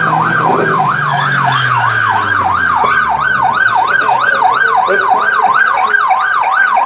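Police car siren yelping: a fast wail that rises and falls about three times a second. A low tone slides downward beneath it during the first few seconds.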